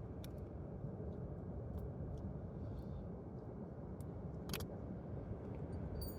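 Wind buffeting the microphone in a steady low rumble, with a few faint clicks from handling bait and tackle, one sharper tick about halfway through.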